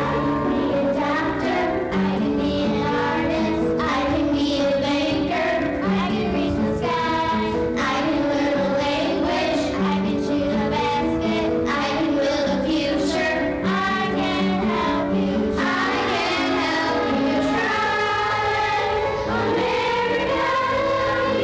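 Children's choir singing a song in unison, with sustained chords from an instrumental accompaniment underneath.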